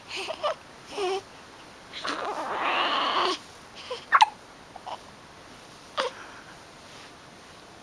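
A baby hiccuping, with short, sharp hiccups a second or two apart and a fussy cry of about a second and a half near the middle.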